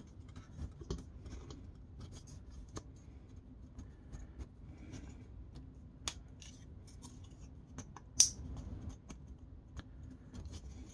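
Faint clicks and light rubbing of hard plastic toy parts as the legs of an Acid Rain Marine Waterstrider are handled and folded, with a sharper click about eight seconds in.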